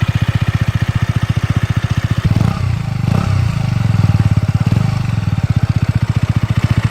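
2017 KTM 125 Duke's single-cylinder four-stroke engine idling with an evenly pulsing exhaust note. From about two seconds in it is revved in a few short throttle blips, each rising and falling back to idle.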